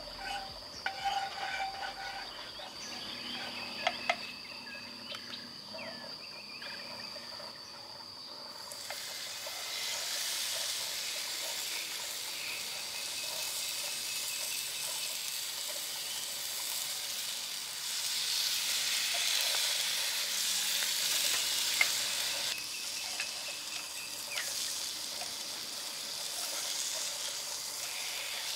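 Pork frying in hot oil in a pan: a sizzle that starts suddenly about nine seconds in and carries on, growing louder for a few seconds later on. Before it there are a few light clicks and a steady high-pitched tone.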